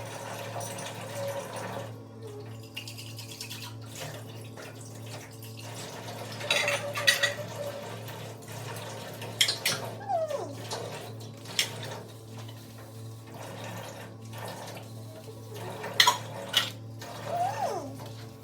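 Dishes being washed at a kitchen sink: water runs from the tap for the first couple of seconds, then dishes and cutlery clink and knock against each other now and then.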